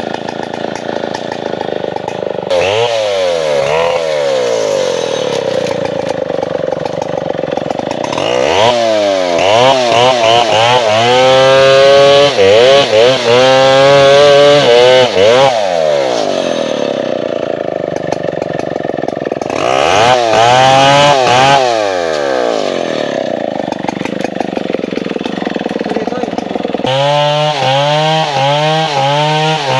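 Two-stroke STIHL 070 chainsaw idling and being revved, then run at full throttle while cutting into a coconut palm trunk for several seconds in the middle, its pitch sagging and wavering under load. It drops back to idle, then is revved again with quick repeated blips near the end.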